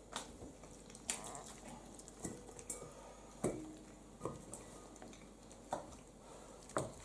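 Faint scattered knocks and clinks as small fish are handled and dropped into a metal pail and dishes are touched on the table, about eight short taps spread over several seconds.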